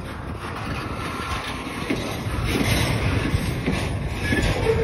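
Double-stack intermodal train of DTTX well cars loaded with shipping containers rolling past close by: steady rumble of steel wheels on rail, with scattered clicks and knocks from the wheels and car connections.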